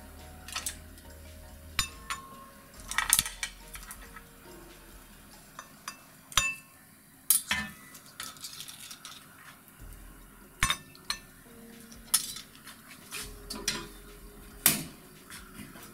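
Scattered clinks and knocks of a metal spatula against a steel frying pan and a ceramic bowl as turban shells and vegetables are lifted out of the pan and plated.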